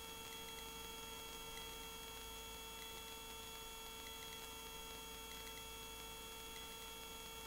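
Cabri G2 helicopter hovering, heard as a faint steady hum of several fixed tones through the headset intercom, with faint small ticks every second or so.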